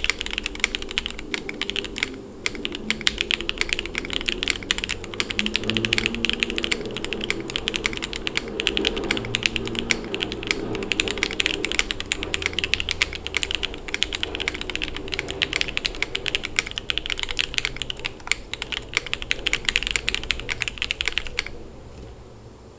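Continuous fast typing on a mechanical keyboard: a Tofu65 acrylic tray-mount case with an FR4 plate and no foam, fitted with lubed JWK red linear switches and PBT keycaps. The dense keystrokes stop near the end.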